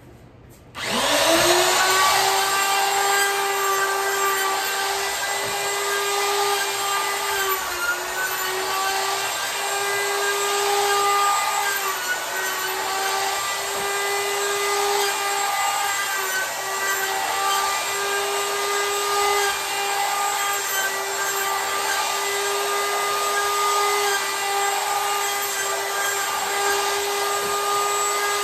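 A DeWalt 2¼ hp router switches on about a second in and spins up quickly to a steady high whine. It runs on as it is pushed along a linear-rail router sled, a 2-inch slab-flattening bit taking a shallow pass across a wood-and-epoxy slab. The pitch dips briefly a few times as the bit bites into the cut.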